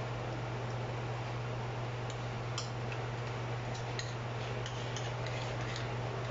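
Wire whisk clicking and tapping against the inside of a non-stick pan as it stirs a thin cornstarch-and-coconut-milk mixture, with light irregular clicks from about two seconds in. Under it is a steady hiss and a low hum.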